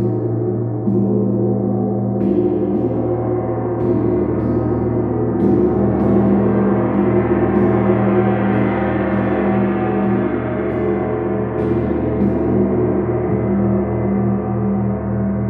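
Large hanging gong struck again and again with two soft-headed mallets, its many overlapping tones ringing on without a break. A new stroke lands every second or two, and the sound grows a little fuller in the middle before easing.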